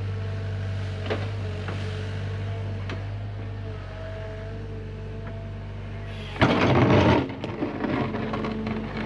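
Hyundai HX85A excavator's diesel engine running steadily with a hydraulic whine and a few light knocks. About six seconds in, a sudden loud, rough clatter begins as the bucket digs into rock.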